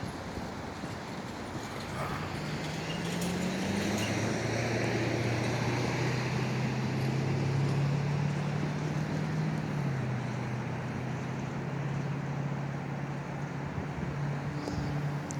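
A road vehicle passing by: a low engine hum and tyre hiss build up, and the hum drops in pitch as it goes past, then fades a little.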